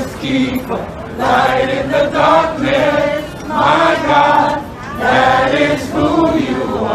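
A crowd of voices singing together in short phrases of about a second each, with brief breaks between them.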